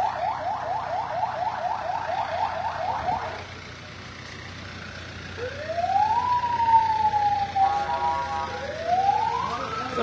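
Electronic siren: a fast yelp of about six quick rising sweeps a second that stops about three and a half seconds in, then after a short pause two slow wails, each rising and then sliding back down, starting about five and a half and eight and a half seconds in.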